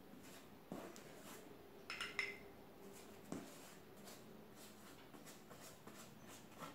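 Very quiet kitchen with a few faint taps and a short glassy clink about two seconds in, from a silicone pastry brush and a small glass bowl of melted butter while butter is brushed onto baked bread in a metal pan.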